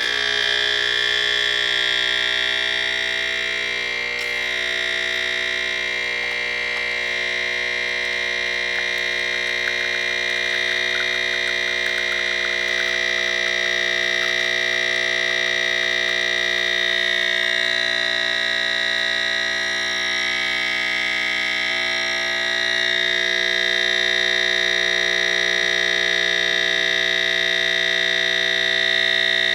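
Background music: a steady synthesizer drone of held tones that starts suddenly and hardly changes.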